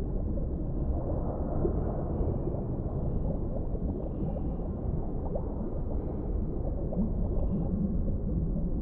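Underwater ambience: a steady low rumble of deep water, flecked with many small gurgling blips.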